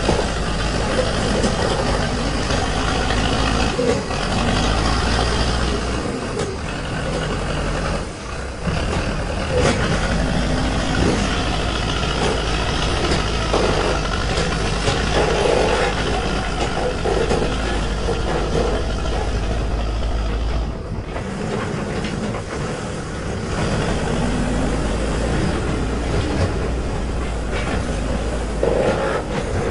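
Manitou Terex backhoe loader's diesel engine running under load as its front bucket pushes and levels soil, the engine sound rising and falling with the work.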